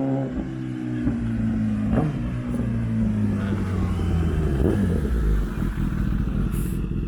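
A motor vehicle's engine coming by, its note falling steadily over several seconds and settling into a low rumble.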